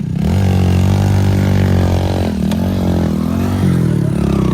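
A heavy vehicle's diesel engine working hard under load as it tries to climb a slope. The engine note holds steady at first, then wavers up and down from about halfway through.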